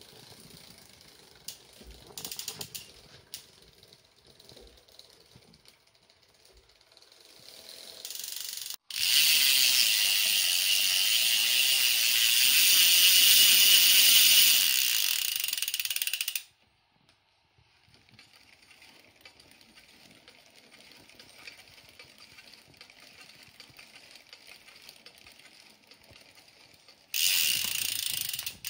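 Dry mountain-bike chain running over the rear cassette and derailleur as the drivetrain is turned: a loud, crunchy grinding for about seven seconds, then a fainter running noise, and a second short loud burst near the end. The crunch is the sign of a chain worn almost completely dry of lube.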